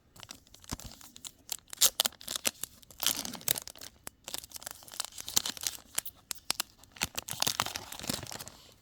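Foil trading card pack wrapper being torn open and crinkled by hand: a run of crackling rips and crumples, strongest in several spurts.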